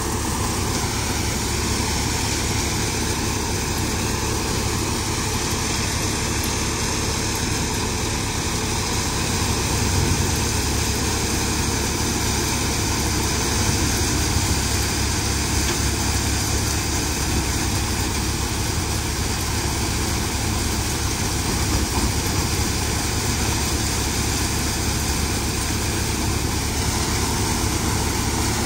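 Tractor engine running steadily, driving a stationary thresher that is threshing dry chickpea plants. The result is one loud, even machine drone with no let-up.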